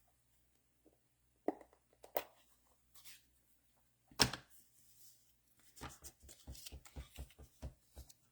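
Handling sounds of a rubber stamp and ink pad on a craft table: a few light clicks and one sharp knock about four seconds in, then a quick run of about a dozen soft taps, roughly five a second, near the end, as when inking the stamp.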